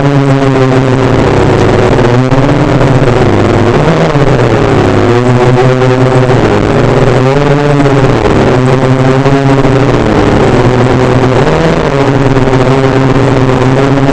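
DJI F450 quadcopter's four electric motors and propellers buzzing in flight, several pitches rising and falling against one another as the motors speed up and slow down to steer.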